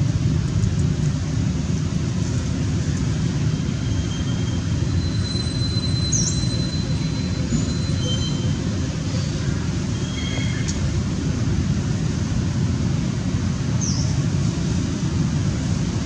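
Steady low rumbling outdoor background noise, with a few faint, brief high chirps and thin whistled tones over it.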